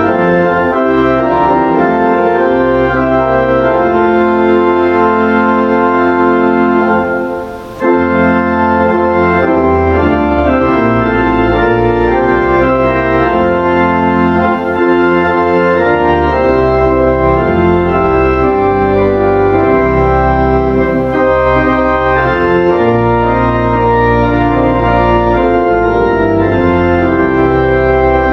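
Organ playing loud, sustained chords, with a short break between phrases about seven and a half seconds in.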